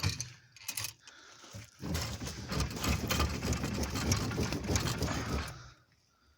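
Wheel arch roller being worked along a car's wheel arch to roll out a dent: a few sharp clicks, then a dense mechanical rattle of ratcheting clicks from about two seconds in that stops near the end.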